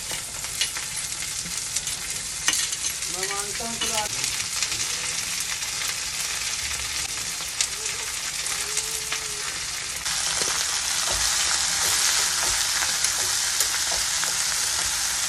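Chopped okra sizzling as it fries in hot oil in a wok, with short clicks and scrapes of a spatula stirring it. The sizzle gets louder about ten seconds in.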